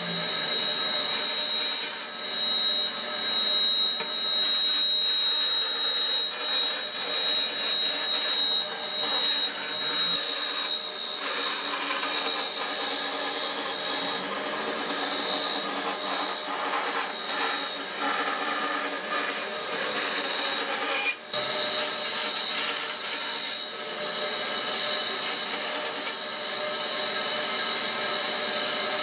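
Bandsaw running and cutting through wood along a curved line, with a steady high whine and a sawing noise that swells and eases as the piece is fed through the blade.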